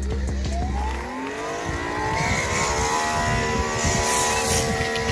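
Electric pressure washer motor spinning up: a whine that rises in pitch over the first couple of seconds, then runs steady.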